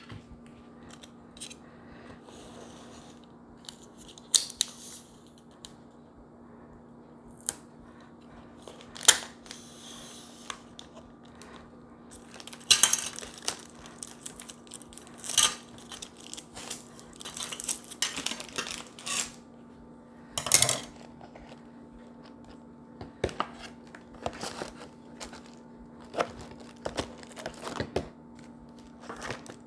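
Packaging crinkling and rustling in irregular bursts, with light clicks and knocks as items are handled and set in place. A faint steady hum runs underneath.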